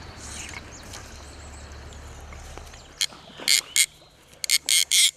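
A faint low rumble, then from about three seconds in a run of short, sharp rasping bursts from the fly reel and line as a trout takes the fly and is hooked.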